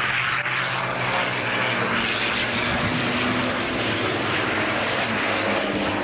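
Race trucks' diesel engines running hard as the trucks pass close by on the circuit, a loud steady drone.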